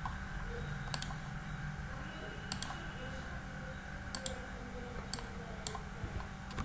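Computer mouse clicking: a few sharp clicks, several as quick double-clicks about a second and a half apart, over a steady low background hum.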